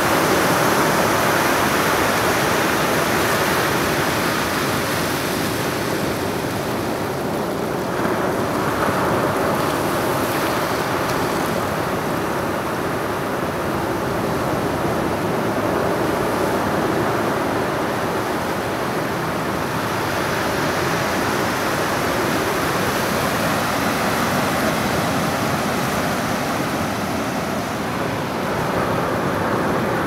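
Ocean surf breaking and washing up over the sand: a steady rush that swells and eases slowly with the waves.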